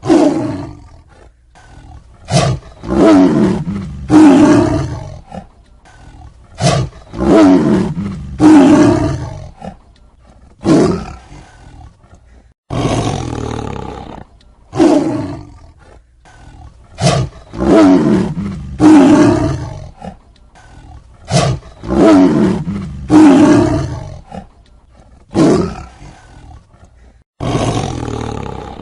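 Tiger roaring and snarling over and over, a string of loud, short roars one every second or two, with two abrupt cuts to silence.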